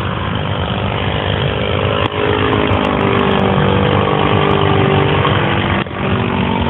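Engine of a radio-controlled J3 Cub model airplane running steadily in flight overhead, its pitch wavering a little as it flies past.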